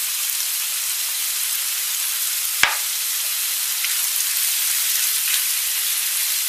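Sliced mushrooms sizzling steadily in a frying pan as they are salted and stirred with a silicone spatula, with one sharp click about two and a half seconds in.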